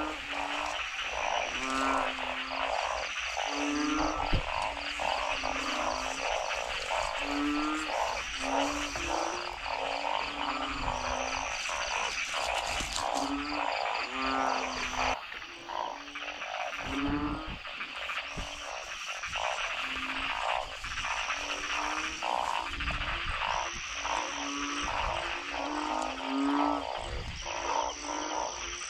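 A dense night chorus of frogs, thick with low calls repeating about once a second over busier, higher calling, at a flooded breeding spot where อึ่ง (narrow-mouthed burrowing frogs) are calling. A regular high chirp sounds every two seconds or so, and there is one sharp knock about four seconds in.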